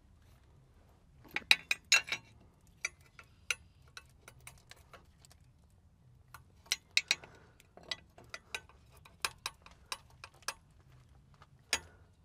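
Irregular sharp metal clicks and ticks of hand-handled air-line fittings on a semi truck's air brake chamber as the lines are connected, with the busiest clusters about two seconds in and about seven seconds in.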